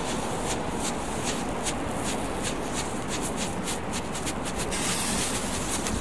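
Ground firework burning, a dense irregular crackle of small quick pops over a steady hiss. About five seconds in the crackle gives way to a smoother, louder hiss.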